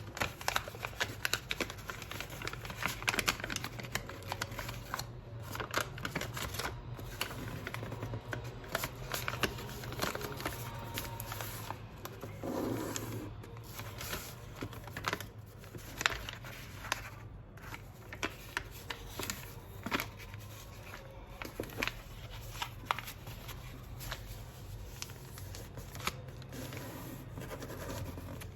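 Close-up handling sounds: light rustling with many scattered clicks and taps.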